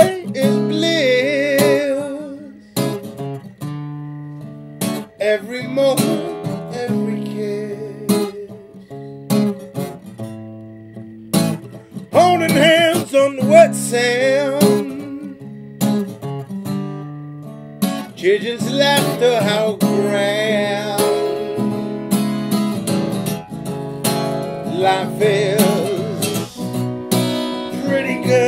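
A man singing solo over his own acoustic guitar. His sung phrases are held with a wavering vibrato and come in several stretches, with the guitar playing on alone between them.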